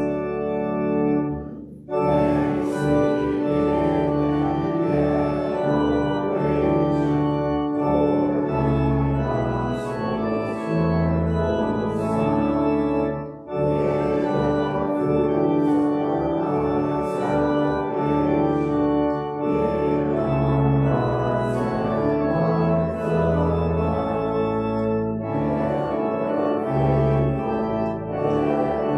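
Organ playing slow, sustained chords over a moving bass line, breaking off briefly about two seconds in and again near the middle.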